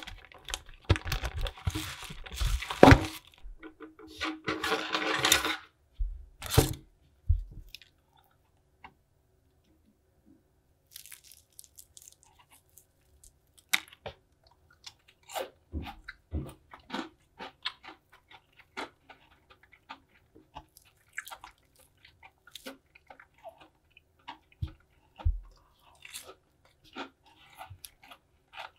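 Crispy dry-batter fried chicken being pulled apart by hand, the crust crunching and crackling in scattered sharp bursts. A few seconds of rustling handling noise come first, then a short quiet spell before the crunching.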